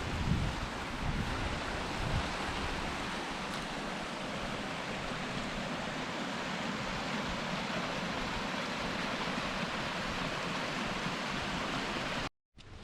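Steady rush of flowing water, with a few low rumbles in the first couple of seconds; it cuts off suddenly near the end.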